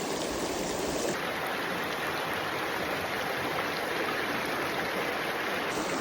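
River water rushing steadily over rocks, a constant hiss, which turns brighter and higher about a second in.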